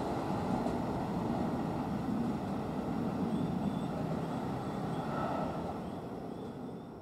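Keio 9000 series electric commuter train pulling away from the platform, its running noise fading steadily as it draws off.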